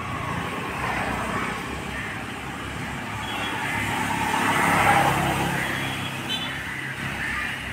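Road traffic: a motor vehicle passing, its noise swelling to a peak about five seconds in and then fading.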